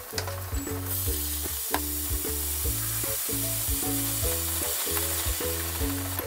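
Daikon and red bell pepper strips sizzling in a hot square frying pan. The sizzle jumps up sharply about a second in, as ponzu sauce hits the pan, and stays loud and steady while the vegetables are stirred with wooden chopsticks.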